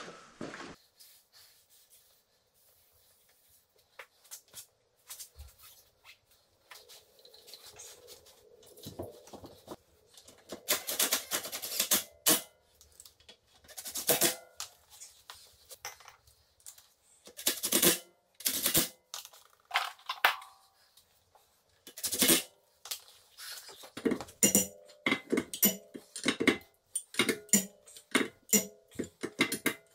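Irregular sharp metallic clinks, taps and scrapes of lug bolts and hand tools as an alloy wheel is fitted and bolted onto a car's hub. The first few seconds are nearly quiet, then the clinks come thick and fast, some with a short ring.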